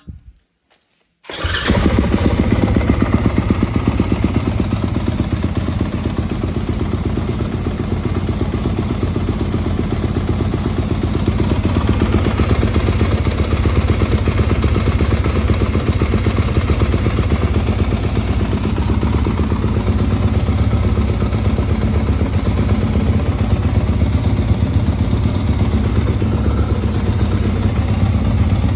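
A 2023 Yamaha YZ250F's single-cylinder four-stroke engine catches after a few brief clicks about a second in, then idles steadily.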